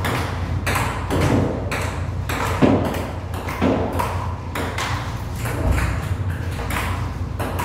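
Table tennis rally: a celluloid ping-pong ball clicking off paddles and the table top about twice a second, over a steady low hum.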